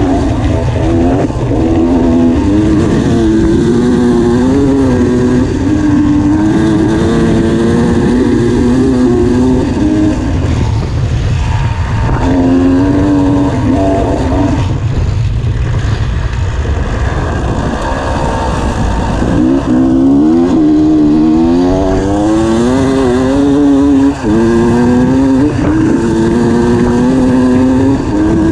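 Enduro motorcycle engine running hard at high revs, its pitch repeatedly climbing and then dropping as the rider shifts through the gears. A constant low wind rumble on the helmet-mounted microphone runs underneath, with a brief throttle cut about three-quarters of the way through.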